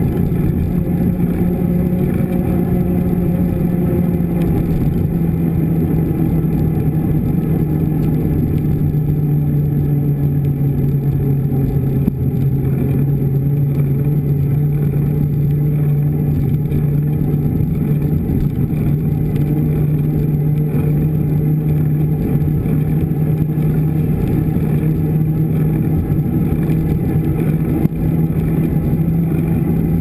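Steady low hum and rumble of a mountain bike rolling on asphalt, picked up by a camera mounted beside the front wheel; the hum sinks slightly in pitch and then rises a little again.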